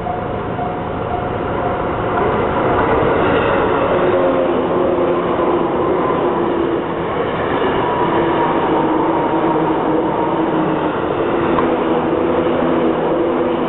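Seibu 101-series electric commuter train passing close by: wheels running on the rails with the whine of its traction motors, growing louder about two seconds in as the cars go past.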